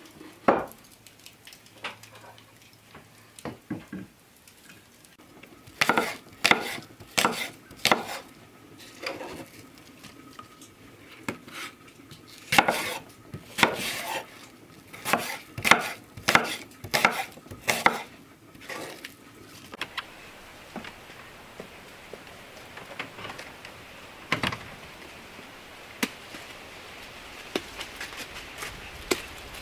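A knife chopping apple on a wooden cutting board: a run of sharp, irregular wooden knocks in quick groups through the middle, after a few knocks as the board is set down. The chopping stops about two-thirds through, leaving a quieter outdoor background with one more knock.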